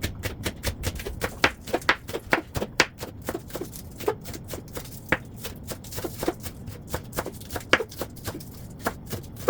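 Knife chopping green onions on a cutting board: a steady run of short sharp strikes, about two to three a second.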